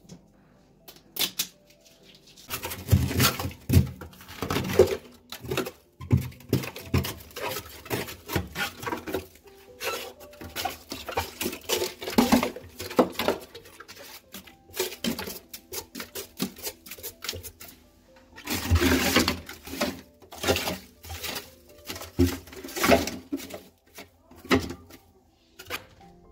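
Plastic scraper scraping and chipping built-up frost and ice off the inside wall of a deep freezer: a run of irregular scrapes and knocks that stops near the end, over quiet background music.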